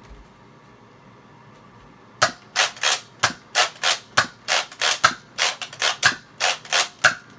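Nerf Mediator pump-action foam-dart blaster being pumped and fired in quick succession: a fast run of sharp plastic clacks and shots, about three a second, starting about two seconds in.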